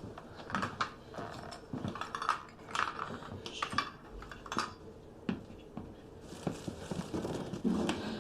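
Irregular small clinks and knocks of hard objects being handled and set down, one every half second or so.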